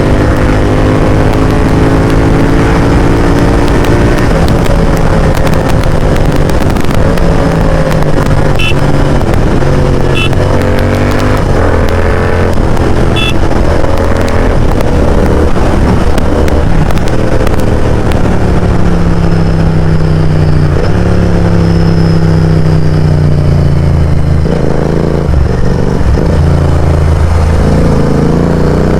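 Royal Enfield Continental GT 650's 648 cc parallel-twin engine breathing through a loud Mototorque aftermarket exhaust, revving up and easing off again and again while riding. The engine pitch climbs in several runs and drops back in between.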